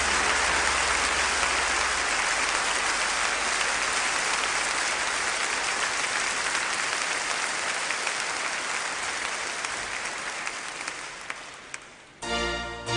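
Congregation applauding, dying away over the last few seconds, with music starting near the end.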